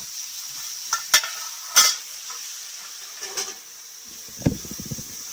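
Chicken steak sizzling in a hot Turk cast-iron frying pan, a steady high hiss, with a few sharp clinks of a utensil against the pan about a second in and again just before two seconds, and some rattling handling near the end.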